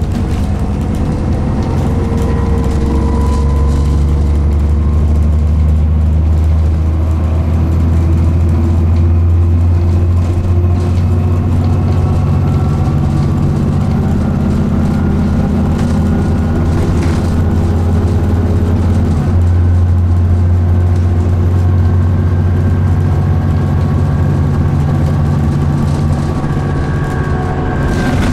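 Alexander Dennis Enviro400 Trident double-decker bus on the move, heard inside its cabin: a steady low engine and drivetrain rumble, with tones that drift up and down in pitch as the bus speeds up and slows.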